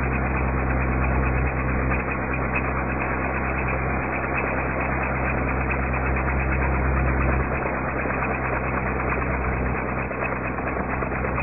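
Towing car's engine running steadily under load, with road and wind noise. The low drone eases a little about seven and a half seconds in.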